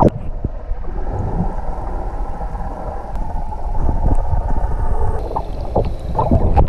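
Muffled underwater water noise picked up by a GoPro action camera below the surface while snorkeling: a dull, low rushing with the high sounds cut away. A sharp splash-like click as it goes under at the start, and a few louder strokes near the end.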